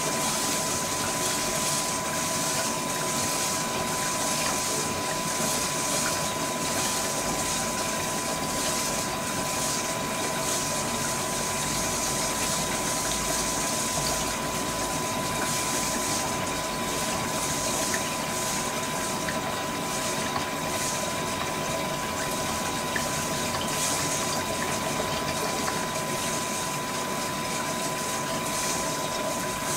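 LG VC2 front-loading washer-dryer taking in water for its final rinse: a steady rush of water pouring into the drum over the wet duvet, with a thin constant tone running beneath it.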